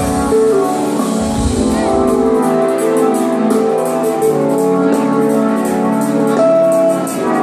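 Live electronic rock band heard loud through a concert hall PA: sustained keyboard chords over deep bass notes. The bass drops out about two and a half seconds in, and a fast, steady high ticking comes in.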